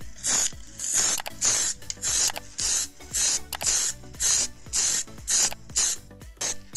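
Aerosol spray paint hissing in short, repeated bursts, about two a second, as white paint is sprayed onto a small model car body.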